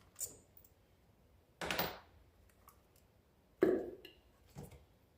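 Ignition coils being pulled out of the spark plug wells and handled: a few short knocks and scrapes, spaced a second or two apart, the sharpest about three and a half seconds in.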